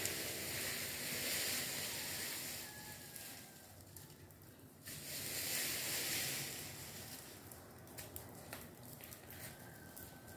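A high, hissing insect drone that swells and fades, dropping away for about a second before the middle and then returning abruptly.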